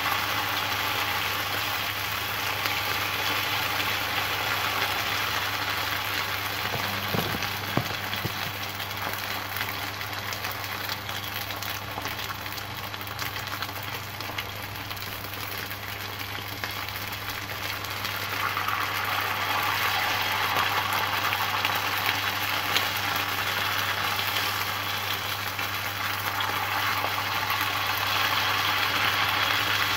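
Oil sizzling steadily as squares of rice-noodle sheet deep-fry in a pan, with a steady low hum underneath. The sizzle swells louder again in the second half, with a few light clicks of chopsticks against the pieces.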